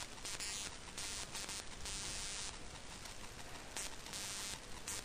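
Steady hiss of background recording noise, swelling and fading unevenly in its higher range.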